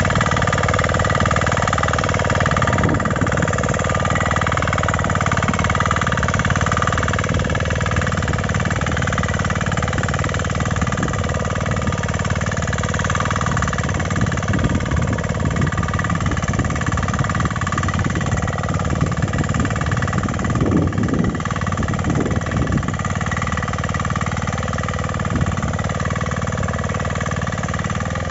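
KisanKraft KK-CI300D 6 HP power weeder engine running steadily under load as its tines till the soil.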